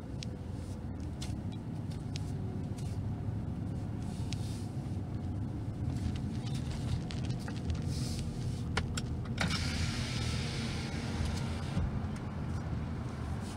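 A car heard from inside the cabin as it rolls slowly and turns, a steady low engine and road rumble with a few light clicks. About nine and a half seconds in, a hiss joins for about two seconds.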